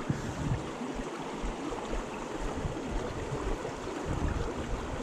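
Mountain stream running over rocks: a steady rushing, splashing noise, with irregular low rumbles underneath.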